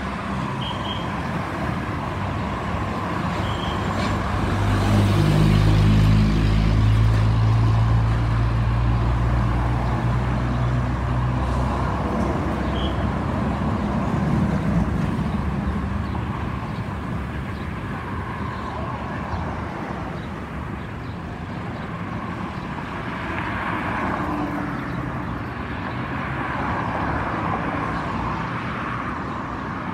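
Roadside traffic noise, with a large vehicle's engine humming close by and loudest from about four to twelve seconds in, its pitch stepping a few times.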